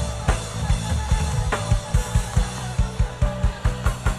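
Church band music driven by a drum kit, with a fast run of drum and cymbal hits over a steady bass line.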